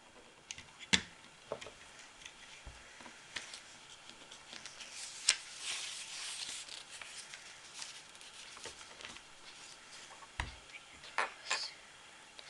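LEGO bricks being handled and fitted together: scattered sharp plastic clicks and taps, with a stretch of rustling about halfway through.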